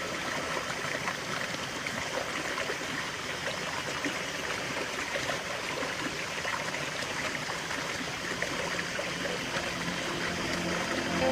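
Running water of a stream, a steady even rush and trickle.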